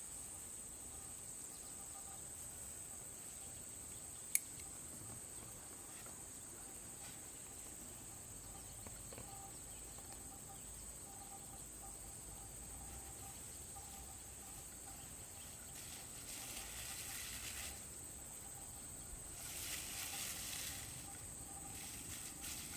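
Steady high-pitched insect chorus, with a single sharp click about four seconds in and two short spells of hiss near the end.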